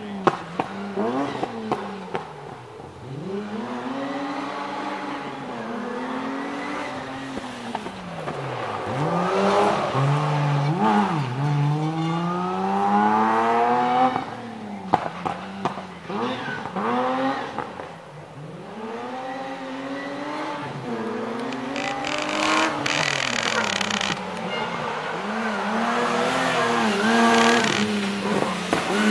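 Historic rally car engines, a BMW E30 among them, revving hard and dropping back again and again as the cars accelerate, brake and turn through tight corners, with tyres squealing at times.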